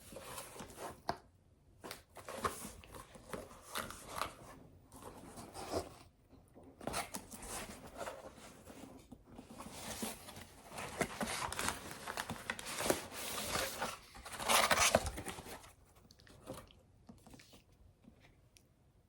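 Parcel packaging being handled and torn open by hand: irregular rustling, crinkling and tearing, loudest about three quarters of the way through.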